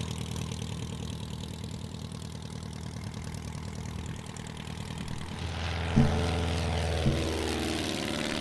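1946 Cessna 140's propeller and four-cylinder engine running steadily at low power, then growing louder about five seconds in as it goes to takeoff power.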